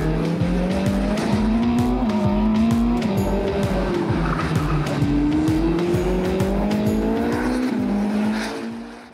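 Ferrari SF90 Stradale's twin-turbo V8 revving up and down under hard driving, with tyres squealing, over background music with a steady beat. It all fades out near the end.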